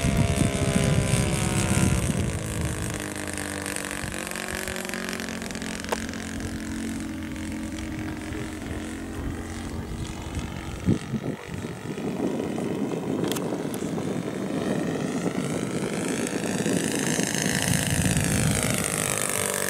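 Four-stroke glow engine (a Laser 150) of a 1:6 scale radio-controlled Hawker Hurricane model running in flight, its pitch rising and falling as the plane passes overhead.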